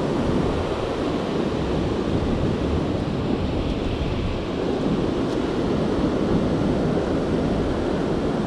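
Surf breaking and washing up the beach in a steady wash, with wind rumbling on the microphone.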